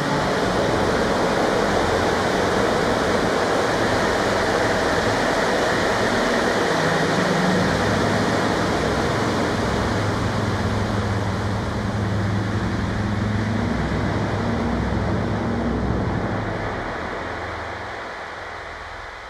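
Experimental noise music: a dense wall of hiss-like noise over shifting low droning tones, fading out over the last few seconds.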